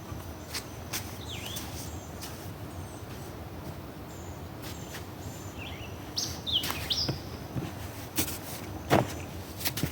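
Birds chirping in short, pitch-sweeping calls, more of them in the second half, over a steady low background rush. Several sharp clicks or knocks are mixed in; the loudest comes about nine seconds in.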